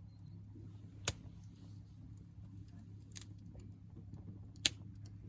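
Small wood campfire crackling: three sharp pops, about a second in, around three seconds and near the end, with a few fainter ticks between, over a faint steady low hum.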